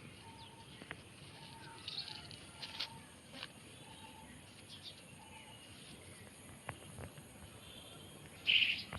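Birds calling: a short, steady note repeated roughly once a second, with fainter higher chirps, and a few light clicks.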